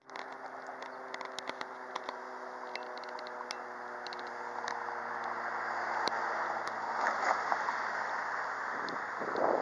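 Steady outdoor street noise with a motor humming at an even pitch, fading out near the end, and a few light clicks.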